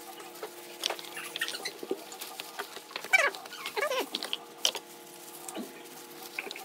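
Two short falling calls from a domestic animal, about three and four seconds in, the first the loudest sound here. Around them, scattered light clicks and rustles of plastic-gloved hands pulling apart ripe jackfruit flesh.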